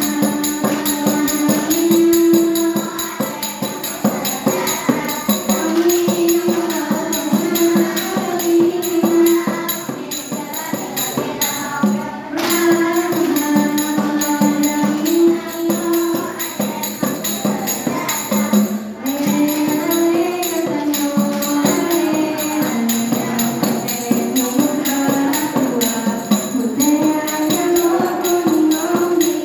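Saman dance: a group of girls singing a melody in unison over fast rhythmic hand-clapping and body-slapping.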